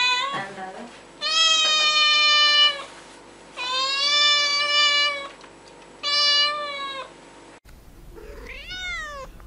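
Domestic cat meowing repeatedly: a short meow at the start, then three long, drawn-out meows with pauses between, and after a cut a shorter meow that rises and falls near the end.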